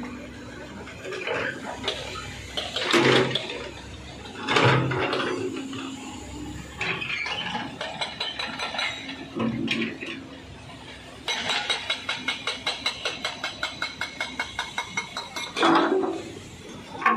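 Komatsu PC130 excavator working among river stones: loud, irregular knocks and clatter of rock over rushing water, then in the second half a fast rattle of about five beats a second for some four seconds.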